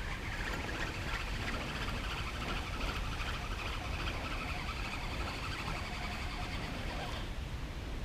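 A steady chorus of calling animals, a fine chirring that stops abruptly about seven seconds in, over a low wind rumble.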